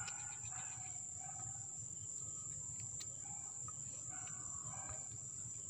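Faint background: a steady, high-pitched chirring of crickets over a low hum.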